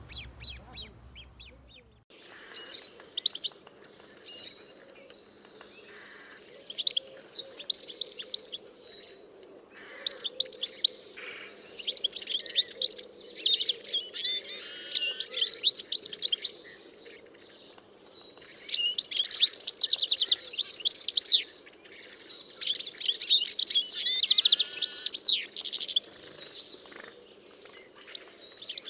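Small birds singing in bursts of rapid, high-pitched chirps and trills, each lasting a few seconds with short pauses between, over a faint steady background hum.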